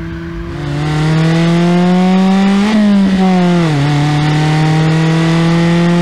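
Mazda ND Miata's four-cylinder engine through a Borla S-Type axle-back exhaust, accelerating hard. The note climbs, drops for an upshift about three seconds in, then climbs again slowly in the next gear.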